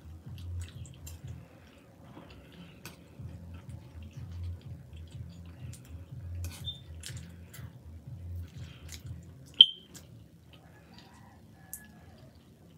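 Close-miked eating of chili cheese fries: chewing and wet, sticky food sounds, with light clicks of a metal fork. One sharp click comes a little after the middle.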